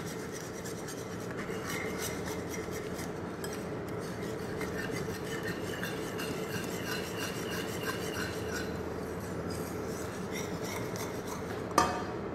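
Wire whisk stirring and scraping béchamel sauce around a stainless steel pan, a steady scraping with many small ticks, whisked to keep the sauce from going lumpy. A single sharp knock near the end.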